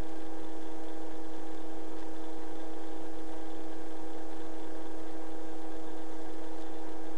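Robinson R22 helicopter's engine and rotor drive heard in the cabin, a steady hum with one clear pitch and overtones above it, unchanging throughout.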